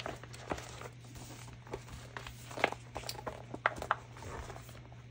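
Paper and a stencil book being handled on a craft table: scattered light taps and soft rustles, over a faint steady low hum.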